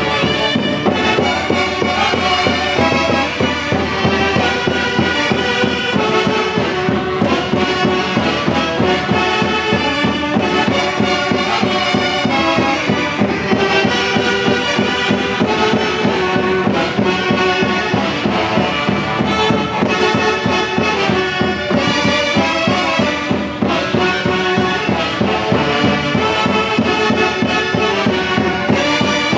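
Andean orquesta típica from Huancayo playing live: a saxophone section carrying the melody over harp, bass drum and a drum kit with timbales, with a steady rhythm.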